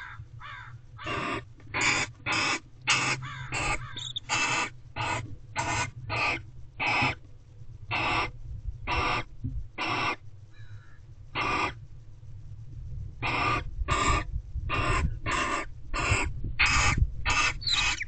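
Barn owls in a nest box giving a run of short, harsh hissing calls, about two a second, with a brief pause partway through.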